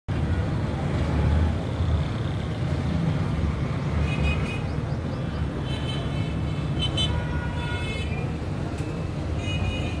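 Steady low rumble of road traffic. Several short, high-pitched sounds come in from about four seconds on.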